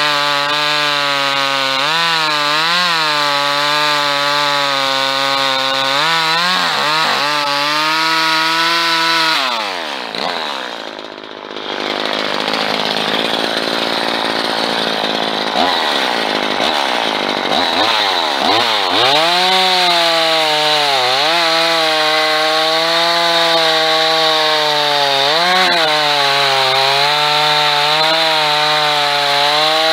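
A small engine running fast, its pitch wavering and dipping now and again. About ten seconds in, the pitch drops away under a rougher, noisier stretch and the sound briefly gets quieter, then it climbs back and runs on.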